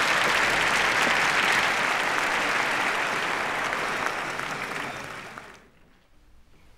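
A large theatre audience applauding, a dense steady clatter of clapping that dies away about five and a half seconds in.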